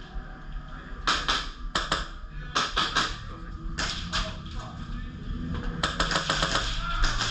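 Airsoft guns firing sharp single shots and short bursts, with a quick string of shots about six seconds in.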